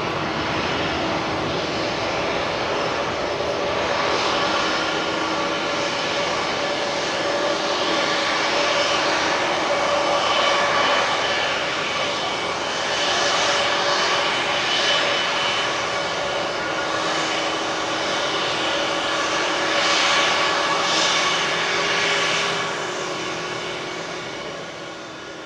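A Boeing 777-300ER's two GE90-115B turbofans at takeoff thrust through the takeoff roll and climb-out: a steady engine noise with several held whining tones that swells in slow waves, then fades away near the end as the jet climbs off.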